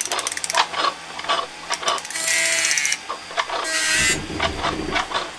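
Mechanical sound effects: a quick run of ratcheting clicks, then scattered clicks and clanks, with a longer hissing whir about two seconds in and a shorter one near the end.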